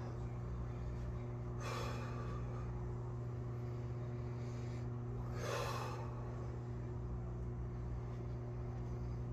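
A man breathing hard while recovering between push-up sets: two heavy breaths out, about two seconds in and again about five and a half seconds in, over a steady low hum.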